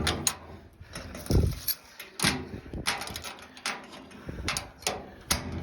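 Footsteps on the trail, a step about every two-thirds of a second.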